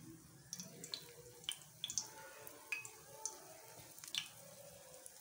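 Hot oil on a flat iron tawa crackling as spoonfuls of pakora batter are dropped in to fry: a faint hiss with irregular sharp pops.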